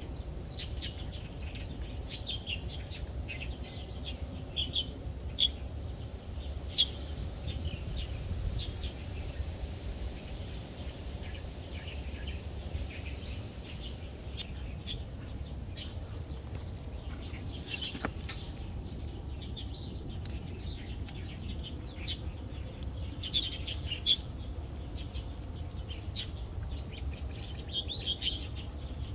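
Small birds chirping on and off over a steady low rumble, with a few sharp clicks here and there.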